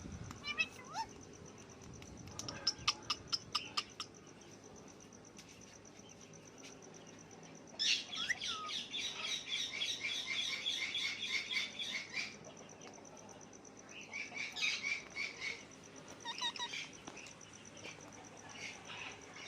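Parrot chirping in bouts: a quick series of chirps about three seconds in, a long run of rapid chirping from about eight to twelve seconds in, then more chirps about fifteen seconds in.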